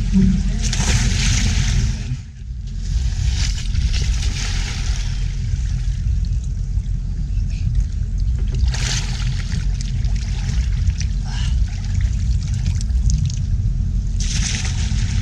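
Muddy water splashing and sloshing as people wade chest-deep and climb out over a metal wall, with several louder splashes through the stretch, over a steady low rumble.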